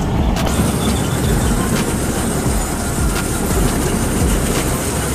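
Kuldeep 4x4 combine harvester running under load as its header cuts crop in waterlogged ground: a loud steady mechanical din with scattered sharp clicks and rattles.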